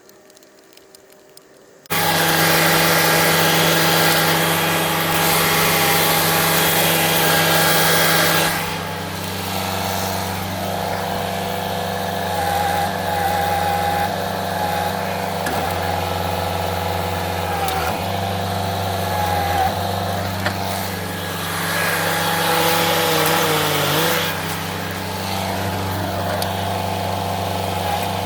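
A heavy machine's engine running loudly, coming in abruptly about two seconds in and carrying on steadily, with whining tones above it that rise and fall in pitch as the machine is worked.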